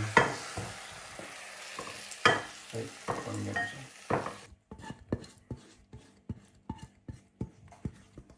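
A spoon stirring chicken devil in a pan, with irregular clinks and scrapes against the metal. A faint sizzle lies under the first half and drops away about halfway through.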